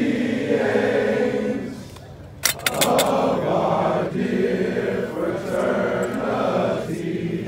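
Group of men's voices chanting together in unison, long held lines broken by short pauses, with a few sharp clicks about two and a half seconds in.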